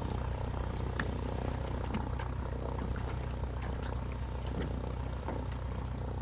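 Light floatplane's propeller engine running at a steady drone in the distance as the plane taxis on the lake.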